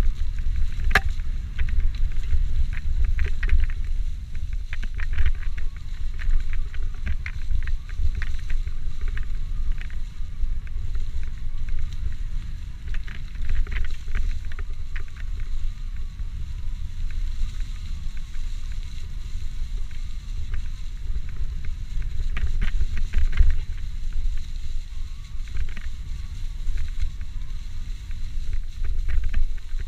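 Wind rumbling on a bike-mounted camera's microphone while an electric mountain bike rides a rough trail, with the bike rattling and clicking over the ground throughout.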